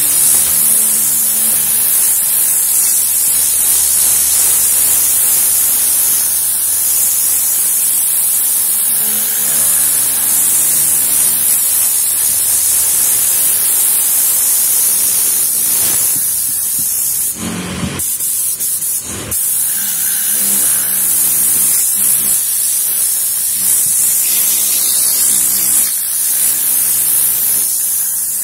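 Tornador pneumatic cleaning gun hissing steadily as compressed air at about 10 bar blows cleaning fluid onto a car's fabric headliner to lift the dirt out. The hiss cuts out briefly twice about two-thirds of the way through.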